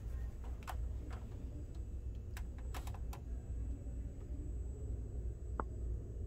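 A handful of light, sharp clicks and taps, several of them close together about two to three seconds in, over a steady low room hum.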